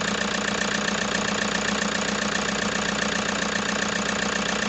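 Toyota Hiace D4D four-cylinder diesel engine idling steadily with a rapid, even knock. The knocking and vibration were traced to worn injector nozzle tips, not to a fault that needs an engine overhaul.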